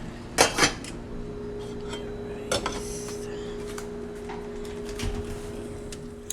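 Kitchen cookware and utensils clattering: two sharp knocks close together about half a second in and another about two and a half seconds in, with fainter knocks, over a steady hum.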